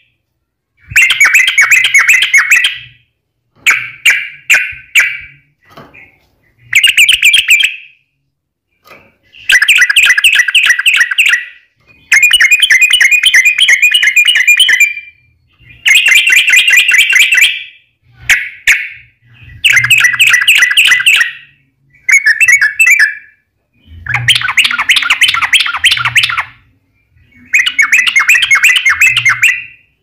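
Yellow-vented bulbul (trucukan) singing in about a dozen bursts of rapid chattering song, each one to three seconds long, with short pauses between them.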